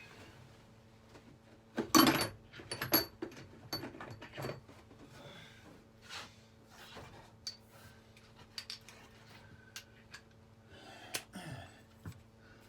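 Metal hand tools clattering, most likely a ratchet and socket extension bar being fetched and fitted. A burst of loud knocks and clinks about two seconds in is followed by scattered lighter clicks and handling noises.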